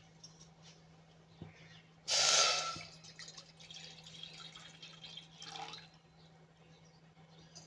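Water poured into a pot: a short loud splash about two seconds in, then trickling and dripping that dies away.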